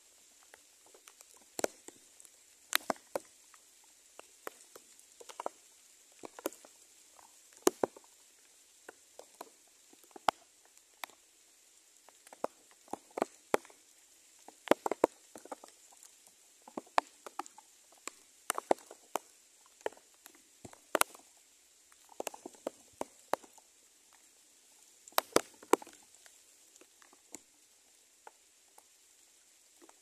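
Irregular sharp taps and light patters, coming singly or in short clusters of a few, with a faint steady high tone underneath.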